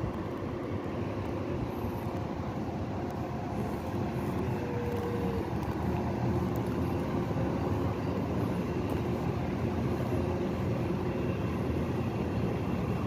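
Steady hum of road traffic and city noise, with a brief faint tone about four and a half seconds in.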